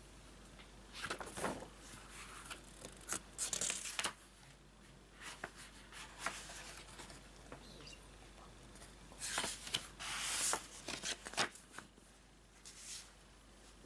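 Paper rustling and rubbing in short irregular bursts: the pages of a picture book being handled and turned, with a louder cluster of rustles about two thirds of the way through.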